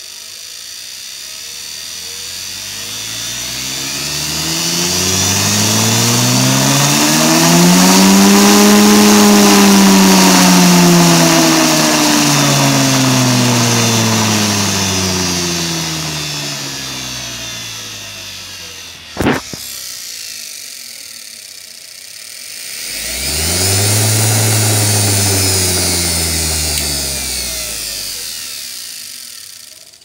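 Washing machine motor spinning up under dimmer speed control, its whine rising to a peak about nine seconds in and then winding down. A sharp click comes partway through, then the motor runs up again more quickly and slows back down.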